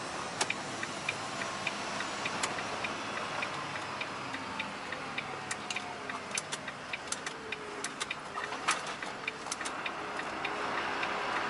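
Truck's turn-signal indicator ticking steadily, about two clicks a second, over low engine and road noise in the cab as the truck makes a turn.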